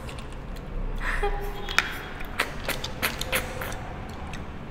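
Many small sharp clicks of boiled freshwater snail shells knocking against ceramic bowls and a plastic plate as they are picked out by hand, with wet sucking as the snails are slurped from their shells.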